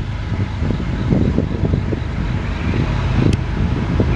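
Lead diesel locomotives of a CSX intermodal freight train approaching, a low engine rumble growing steadily louder, with a single sharp click about three seconds in.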